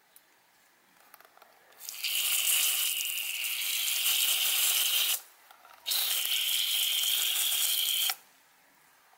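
Garden hose spray nozzle jetting water onto the bare roots of a freshly dug shrub on concrete, washing the soil off. There are two hissing bursts of about three and two seconds, each with a steady high tone in the spray, and each cuts off sharply.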